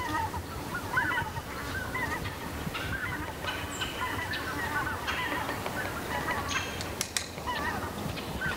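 Birds calling repeatedly in short, bending notes over a steady low background rush, with a couple of faint clicks about seven seconds in.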